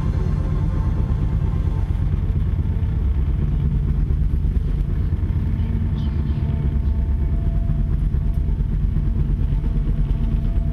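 A steady, deep rumbling drone, with faint held tones above it in the first couple of seconds.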